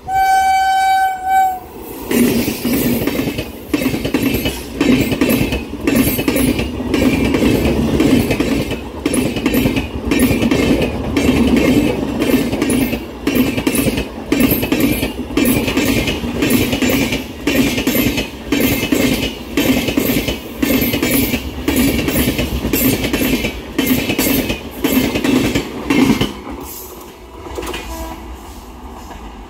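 WAP7 electric locomotive sounds its horn in one short steady blast. Then the coaches of a long express train run past at full line speed, the wheels clattering over the rail joints in a fast, even clickety-clack that fades out near the end.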